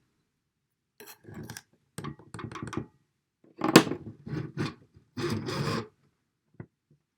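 Scraping and rubbing of handling and probing at the small potentiometers of a disassembled audio interface's circuit board, in several short bursts with a sharp click about four seconds in.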